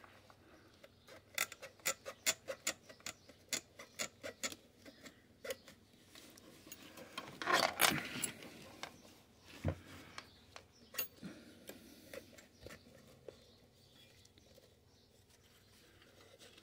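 Brass frame and gasketed end cap of a fare box's glass tower being worked apart by hand: a quick run of light clicks and ticks, a brief scrape about eight seconds in, and a single low knock near ten seconds.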